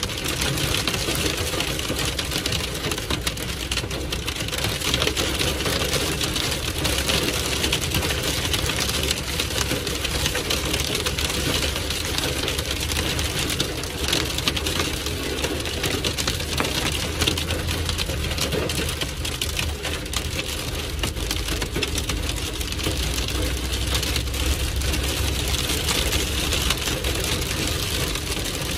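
Heavy rain and hail pelting the car's roof and windscreen, a dense, steady hammering of many small impacts heard from inside the cabin, with the engine and tyres running as a low rumble beneath.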